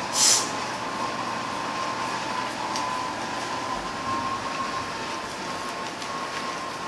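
A block of mozzarella rubbed on a flat metal hand grater, giving a steady scraping rasp over a constant background hum, with a short hiss just after the start.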